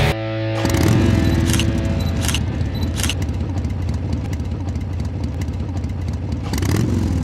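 Motorcycle engine running steadily on the road, a low hum with a couple of brief swells in pitch and a few short sharp noises.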